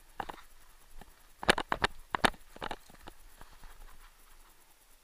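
Paintball marker firing a quick, uneven string of about six sharp shots, starting about a second and a half in.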